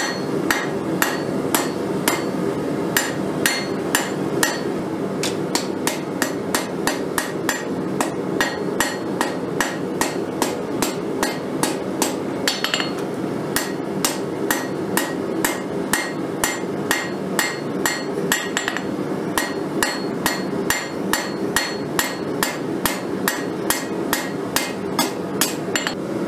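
Hand hammer striking red-hot mild steel bar on an anvil, drawing out a narrow stem with steady, even blows at about two to three a second. A steady low hum runs underneath.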